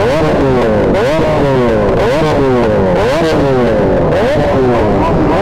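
Superbike engine revved in quick repeated blips, each jumping up sharply in pitch and then falling away more slowly, about one and a half a second.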